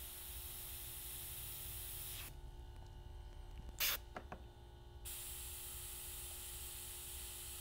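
Airbrush spraying paint: a steady hiss of air that breaks off a little after two seconds and resumes about five seconds in. In the gap there is one short, loud burst.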